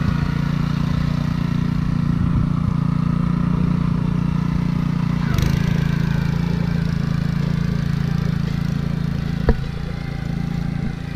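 Honda engine of a Ryan Lawnaire walk-behind core aerator running steadily under load as the aerator pulls plugs from the lawn, with one sharp knock near the end.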